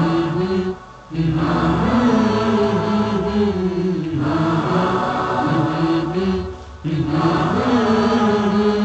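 Male voices chanting a naat's vocal backing in long held phrases, with short breaks about a second in and again near the end.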